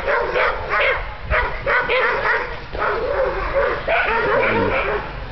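Shepherd dog barking rapidly and without letup, several barks a second, as it drives off a bear.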